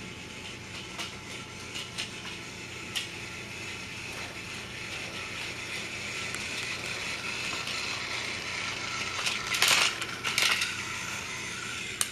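Small toy train's motor and gears whirring steadily as it runs along plastic track, slowly growing louder as the engine nears. A few light clicks come in the first three seconds, and two louder rattling bursts come about ten seconds in.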